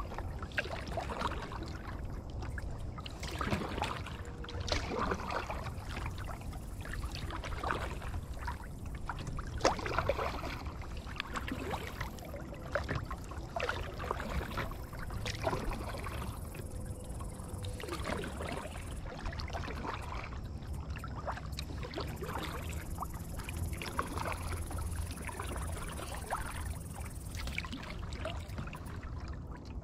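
Kayak paddle strokes: the blades dip and splash in the water again and again, with fewer splashes in the second half, over a steady low rumble.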